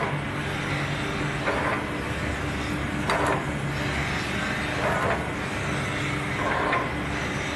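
Nagase SCG-94 surface grinder running, with a steady motor hum and a hissy swell that comes back about every second and a half to two seconds.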